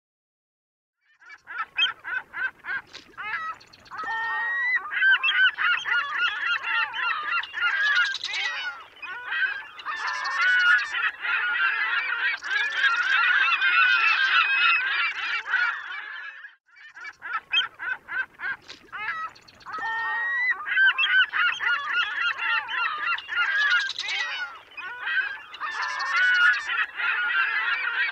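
A flock of birds calling, many overlapping calls at once. The chorus breaks off about sixteen seconds in and starts again a second later, the same recording played over again.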